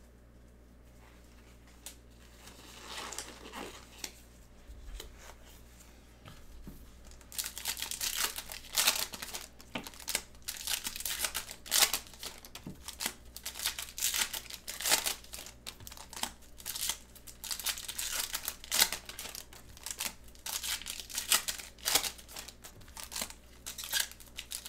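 Foil trading-card pack wrappers crinkling and tearing as packs are opened by gloved hands, with cards slid out and handled. It is fairly quiet for the first several seconds, then the crinkling runs dense and irregular from about seven seconds in.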